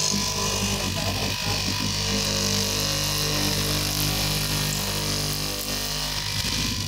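Electric straight-knife cloth cutting machine running steadily, its upright reciprocating blade cutting through a tall stack of layered fabric.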